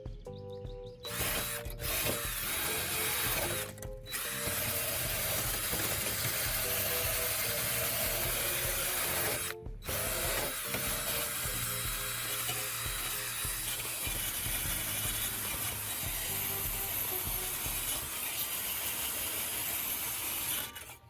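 Wire brush scouring rust off a vinegar-soaked steel case panel, a steady harsh scrubbing that pauses briefly about 4 and 10 seconds in, over background music.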